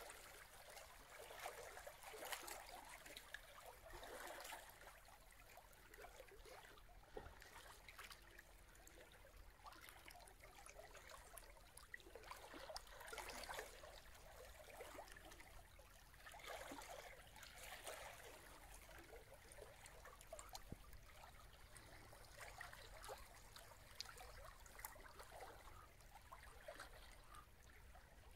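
Faint water lapping and trickling, swelling and fading every few seconds.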